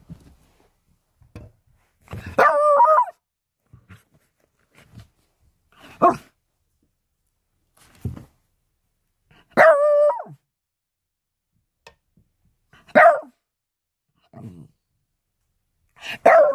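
Small dog barking five times, evenly spaced, two of the barks drawn out to nearly a second. Fainter low sounds come in between.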